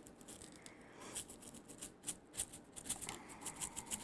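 Plastic multi-compartment sprinkle shaker being shaken over iced sugar cookies, with small heart sprinkles rattling inside it and pattering out. The rattles are faint, quick and irregular, and start about a second in.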